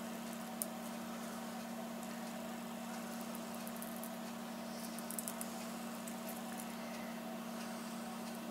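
A steady low hum with a faint even hiss above it, broken by a small click about half a second in and a few faint ticks around five seconds in.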